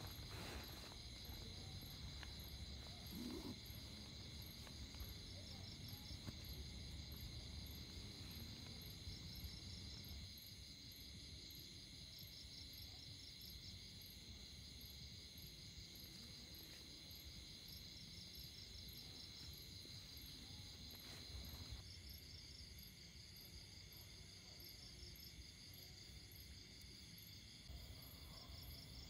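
Night insects chirping: a steady high chirring, with pulsed trills coming and going and a regular fast high ticking. A faint low rustle underneath fades about ten seconds in.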